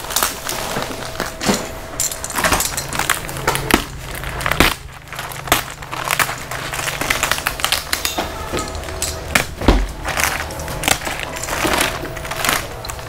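Thick plastic wrapping on a clothing bale being pulled and torn open, crinkling and crackling in irregular sharp rustles, over a faint steady low hum.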